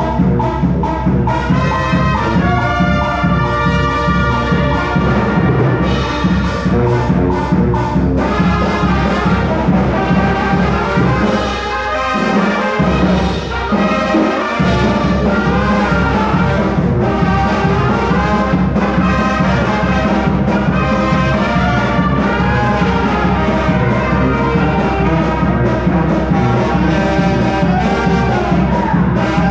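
Live brass band playing dance music: trumpets, trombones and saxophones over a sousaphone bass line and drums, with a steady beat. The low bass drops out for a moment about halfway through, then comes back in.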